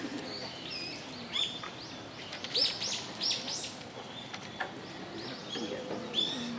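Small birds chirping: a series of short, high calls, thickest around the middle of the stretch and again near the end, over a steady background hum.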